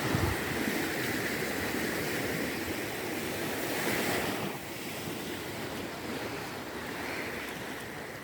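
Small waves of a calm sea washing onto a sandy beach, with wind on the microphone. The wash swells to its loudest about four seconds in, then eases.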